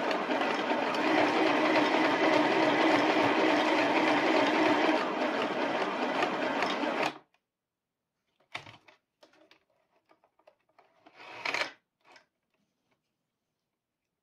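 Compact electric sewing machine (FHSM-505B) running steadily, stitching through fabric, then stopping abruptly about seven seconds in. After it stops come a few brief, faint handling noises, the loudest one near the end.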